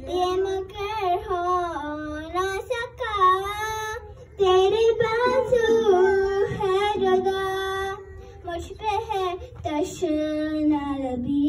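A young girl's solo voice chanting a noha, a Shia lament in Urdu, unaccompanied and drawn out in long, wavering held notes, with short breaths between phrases.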